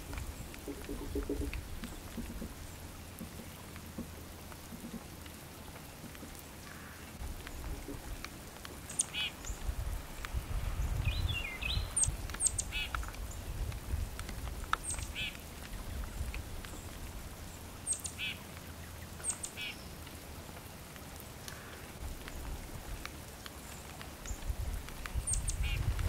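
A small songbird calling repeatedly from about a third of the way in: short sharp high notes, each followed by buzzier lower notes, a call every one to three seconds, over a low steady rumble.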